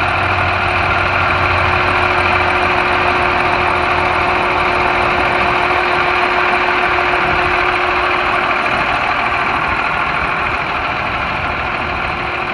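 2011 Blue Bird school bus's 8.3-litre Cummins inline-six diesel idling steadily, with a steady high tone held over the engine noise.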